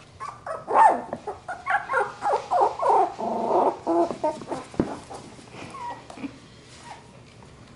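Labradoodle puppies yipping and whining as they play, a quick run of short high calls in the first four seconds, then only a few scattered ones.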